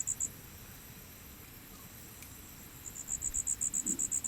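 An insect chirping in a fast, even series of high-pitched pulses, about seven or eight a second. It breaks off just after the start and resumes about three seconds in.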